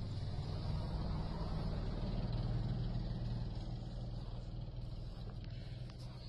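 Small car passing and driving away on a packed-snow road: its engine hum and tyre noise swell to a peak about two and a half seconds in, then slowly fade.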